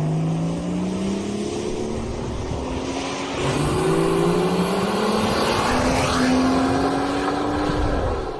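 Rolls-Royce Phantom Series II by Mansory, its V12 engine pulling under acceleration. The engine note climbs steadily, drops at an upshift about three seconds in, then climbs again.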